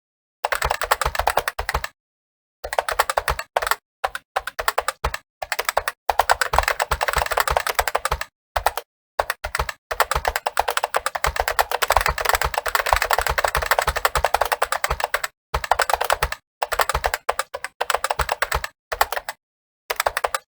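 Fast typing on a computer keyboard: rapid key clicks in runs of one to several seconds, broken by short pauses, with the longest unbroken run in the middle.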